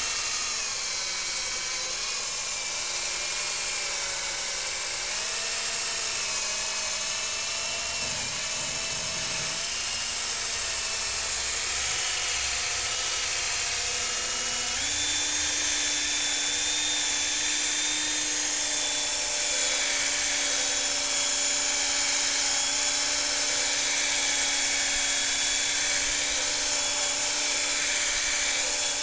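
Cordless drill running at speed, spinning a foam polishing ball against a plastic headlight lens: a steady motor whine that steps up in pitch and gets a little louder about halfway through.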